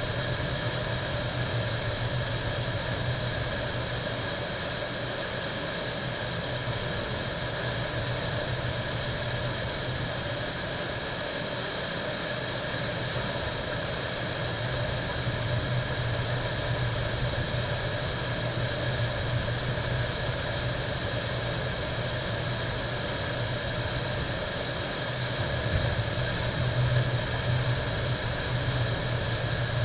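Whitewater of a river standing wave rushing in a steady, unbroken roar, with a deep rumble underneath that swells slightly near the end.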